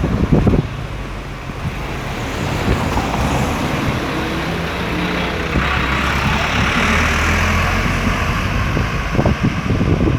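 Street traffic: a motor vehicle's engine running close by, with a loud hiss for a couple of seconds past the middle.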